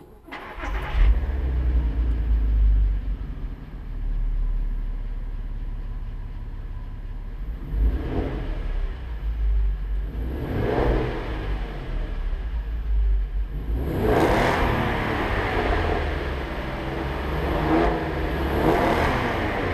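Audi TT 3.2's VR6 engine with its stock exhaust starting up, flaring high for a couple of seconds and then settling to idle. It is then revved four times, the third rev the longest.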